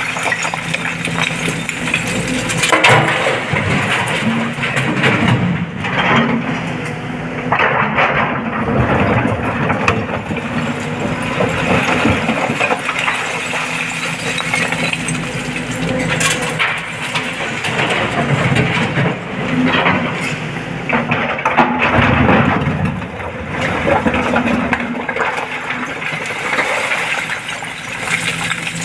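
SANY 225 excavator's diesel engine running steadily, with repeated clanks and crashes of rock and the steel bucket as it loads a dump truck, several of them loud.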